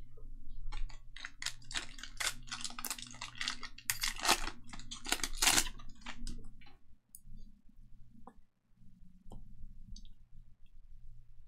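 Foil wrapper of a Panini Donruss basketball card pack crinkling as it is handled and torn open, a dense crackle for the first six seconds or so. After that come a few soft clicks of the trading cards being flicked through.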